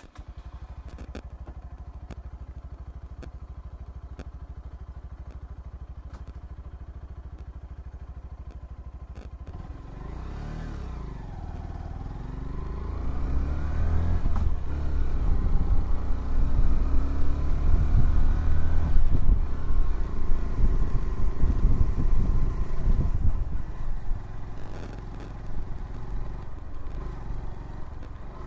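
A Honda CBF125R's 125cc single-cylinder engine idles steadily, then pulls away about ten seconds in. It revs up through the gears, and its pitch rises and drops at each shift. At riding speed the engine runs loud and rough, and it eases off near the end.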